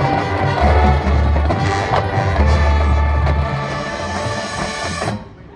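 High school marching band playing loud sustained chords with brass and deep low drums, cutting off sharply about five seconds in.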